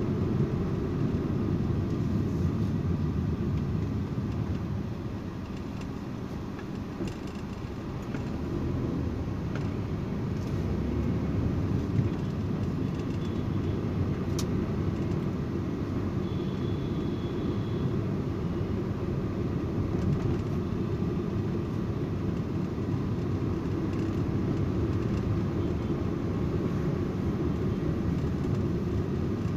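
Engine and road noise inside the cabin of a moving Maruti Suzuki Alto K10, its 1.0-litre three-cylinder petrol engine running at a steady cruise. The noise dips briefly about five seconds in, then picks up again.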